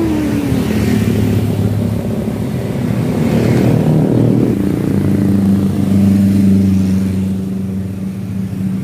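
Road traffic: motorcycle and car engines running past, a steady engine drone that eases off a little near the end.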